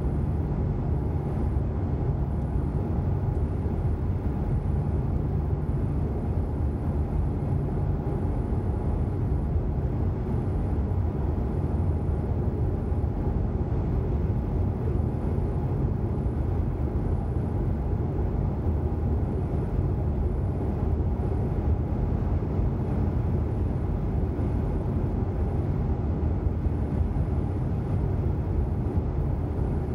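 Steady low rumble of road and engine noise heard from inside a car's cabin while it cruises along a dual carriageway.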